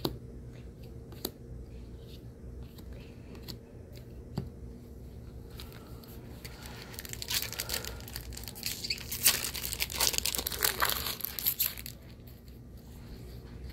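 Foil Magic: The Gathering booster-pack wrapper being torn open and crinkled, a dense crackling from about six seconds in that lasts several seconds. Before it, a few light clicks of cards being handled.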